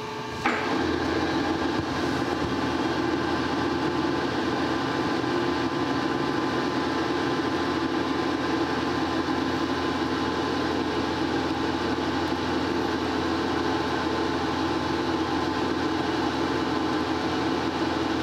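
Monarch Model K metal lathe starting up in reverse about half a second in, then running steadily at low speed. Its spindle is backing a tap out of a freshly power-tapped hole.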